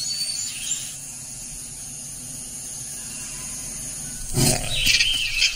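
A steady low background, then about four seconds in a sudden loud snarl from a young jaguar as it attacks live prey.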